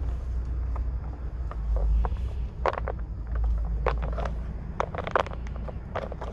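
Low steady rumble of a car idling, heard from inside the cabin, with frequent short clicks, scrapes and rustles from a handheld phone being moved around.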